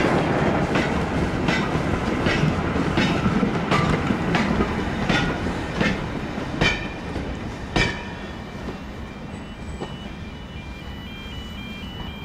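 Goods train of four-wheeled freight wagons rolling past on jointed track, wheels clicking over the rail joints about every 0.7 s. The last clicks are the loudest, then the rolling noise fades as the rear of the train draws away.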